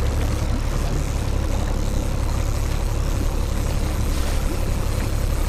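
Small fishing boat's engine running steadily at trolling speed, a low drone under the hiss of wind and water on the boat.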